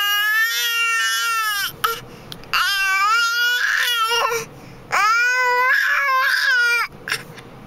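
Three long wailing cries like a baby's, each lasting about two seconds, with short gaps between them.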